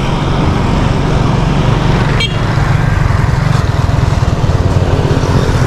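Steady rumble of wind on the microphone and road noise while riding a bicycle on a road with motor traffic, with one sharp click about two seconds in.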